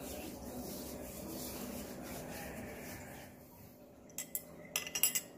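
Hands rubbing together, a steady rub for about three seconds. Then, about four seconds in, a metal stirring rod clinks sharply several times against a small glass beaker.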